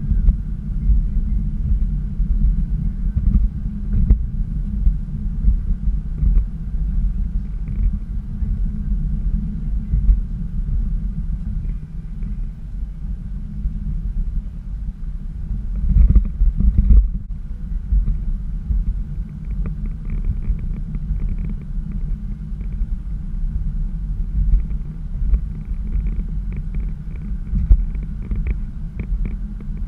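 Low, steady rumble of a car driving on the road, heard from inside the cabin: tyre and engine noise, with a louder surge about sixteen seconds in.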